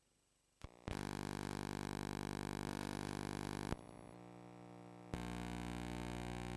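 A steady electronic drone that starts abruptly about a second in, drops quieter with a changed tone a little past halfway, then comes back louder with another tone near the end.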